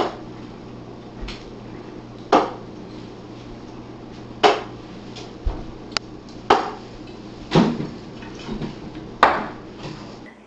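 Scattered sharp knocks and clatters, about seven in ten seconds and irregularly spaced, each with a short ring, over a steady low hum.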